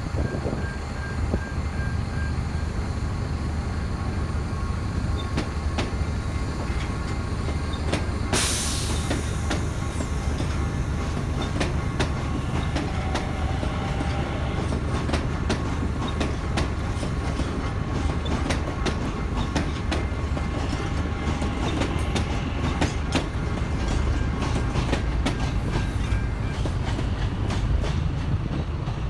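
A commuter train passing over a level crossing, heard from inside a bus: a steady low rumble with rapid wheel clicks over the rails. A sharp crack comes about eight seconds in, and the clicking runs on densely after it.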